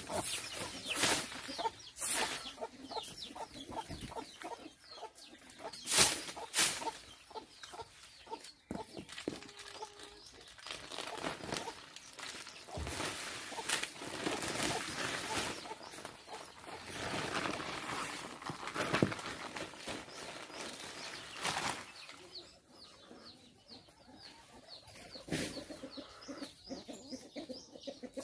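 Chickens clucking while a straw broom sweeps bare dirt in repeated scratchy strokes, a few of them sharp and loud in the first third.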